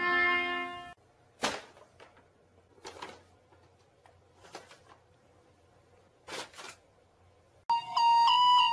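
A few short crinkles of a paper bag as a cat moves about with the bag over its body. A held, pitched sound cuts off about a second in, and music with steady tones starts near the end.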